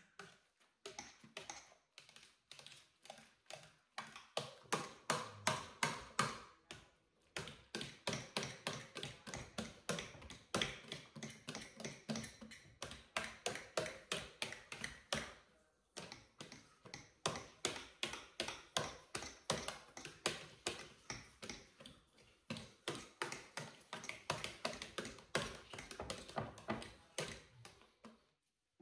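Metal potato masher working mashed potato in a stainless steel pot: quick, even knocks against the pot, a few a second, with short pauses now and then.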